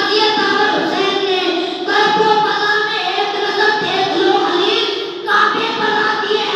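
A boy's voice singing an Urdu manqabat (devotional poem) into a microphone, in long chanted phrases.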